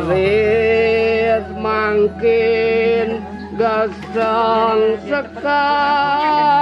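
Slow Balinese devotional singing (kidung): a single voice holds long, slightly wavering notes in phrases broken by short pauses, over a steady low hum.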